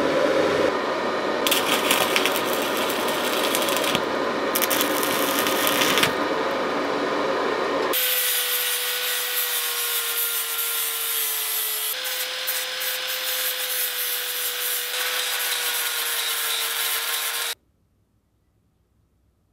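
Wood being worked with shop tools in short edited cuts. From about eight seconds in, a machine runs with a steady hum under the cutting noise, and it all stops abruptly near the end.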